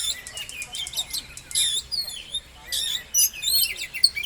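Oriental magpie-robin (kacer) singing: a fast, varied stream of whistles, swooping notes and harsh chattering, used as a lure song to provoke a caged male into display.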